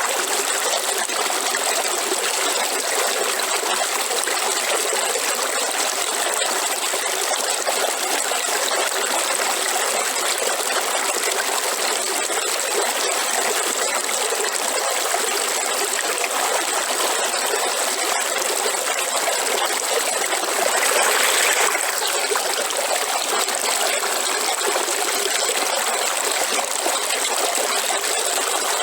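River water flowing steadily, with a brief louder surge about two-thirds of the way through.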